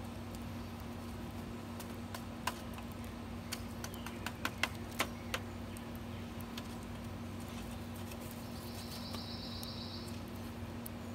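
Wooden stick knocking and clicking against a small metal hobo stove and its burning fuel wood as it is poked into the stove's side feed hole: a run of sharp knocks in the middle, over a steady low hum.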